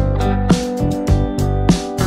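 Instrumental background music with plucked notes over held chords, keeping a steady beat.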